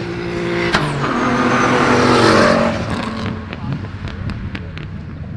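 Race car accelerating hard at full throttle. The engine note climbs, breaks off sharply with a gear change about a second in, then swells loudest as the car goes past. Several sharp pops follow in the second half.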